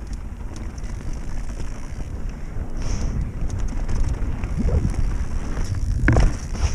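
Wind buffeting the microphone of a mountain-bike-mounted camera over the rumble of knobby tyres on a gravel dirt singletrack, with light rattles from the bike. The rumble grows louder, and there is a sharper knock near the end as the bike reaches a rocky, rutted stretch.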